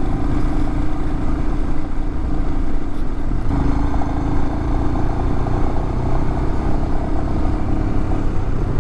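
Adventure motorcycle engine running steadily under way, over a low rumble. The engine note steps up slightly about three and a half seconds in.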